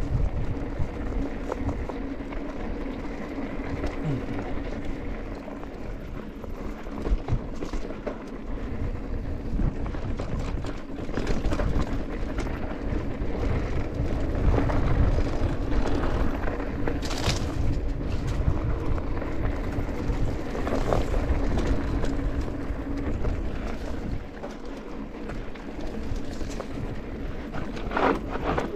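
Mountain bike being ridden along a dirt trail: a constant low rumble of wind and tyres on the ground, with scattered rattles and clicks. A steady hum runs through it and stops about three quarters of the way through.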